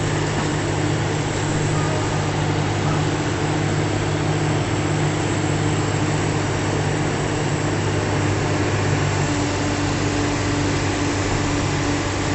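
An engine running steadily, a constant low drone that holds the same pitch throughout.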